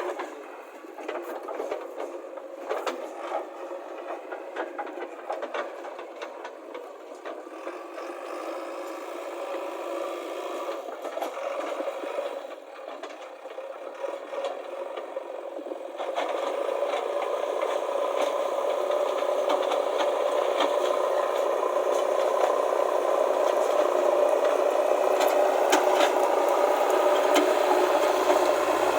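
JCB backhoe loader's diesel engine running with rattling and scraping from the machine and gravel. About halfway through the engine gets louder and steadier.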